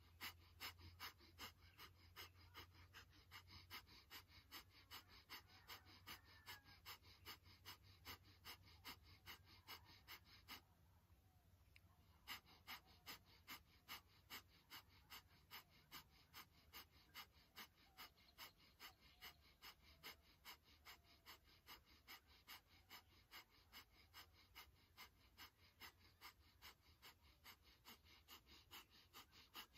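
Breath of fire: rapid, rhythmic forceful exhales through the nose, driven by pumping the navel, about two to three a second. The rhythm breaks off for about a second and a half roughly eleven seconds in, then carries on.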